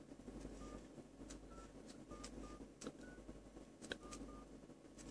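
Faint keypad tones from a Samsung Galaxy Ace S5830's phone dialer as a number is keyed in: about seven short beeps at uneven spacing, with a few light clicks among them.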